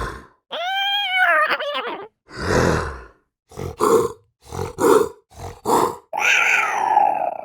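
A run of cat calls: a pitched call that rises and falls, a harsh burst, then about six short, rough bursts in quick succession, and near the end a longer call that falls in pitch.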